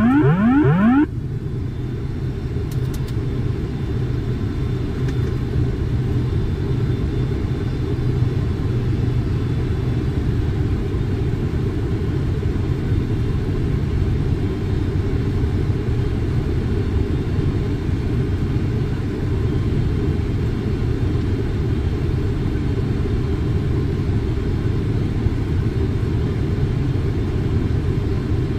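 Steady low rumble of airflow and engine noise on a Boeing 747 flight deck during the approach. A short run of quickly rising electronic tones cuts off about a second in.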